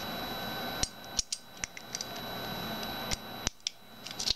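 Light metal clicks and scrapes of a steel wire peg hook and a metal single wire hook lock being handled and slipped onto a looped wire hook, a few irregular clicks.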